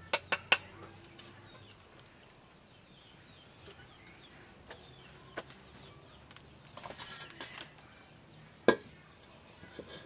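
Wooden knocks and clatters as sticks of firewood are laid into a clay charcoal stove: three sharp knocks at the start, a cluster of lighter clatters around the middle, and the loudest knock near the end. Faint chicken and bird calls sound in the background.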